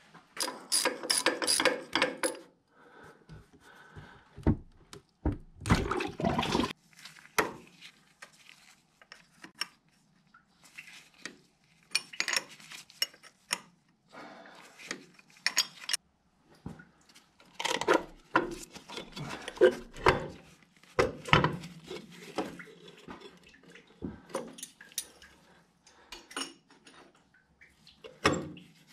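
Metal tools and parts clanking and scraping in irregular bursts, with short pauses between.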